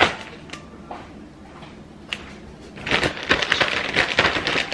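Zip-top plastic bag of chocolate-coated cereal and powdered sugar being shaken to coat the pieces for puppy chow: a dense rattling of cereal against the plastic, starting about three seconds in after a few light clicks.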